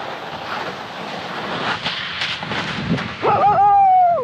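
Skis sliding and scraping on snow, then, about three seconds in, a dog's loud high whine lasting about a second, rising, held, and dropping away at the end.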